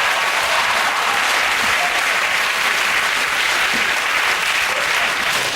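Studio audience applauding steadily after a joke's punchline.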